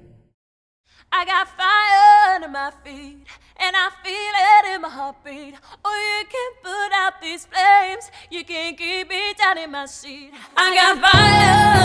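A woman singing solo without accompaniment, in several phrases with vibrato, starting about a second in. Near the end a full band with heavy bass and drums comes in.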